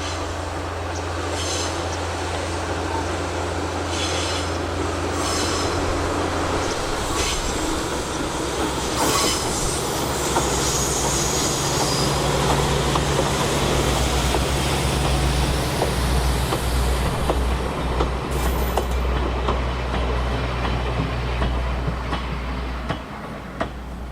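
Kominato Railway diesel railcar running past, its engine running steadily while the wheels click over rail joints. There is a brief high wheel squeal midway. The sound builds, then falls away near the end.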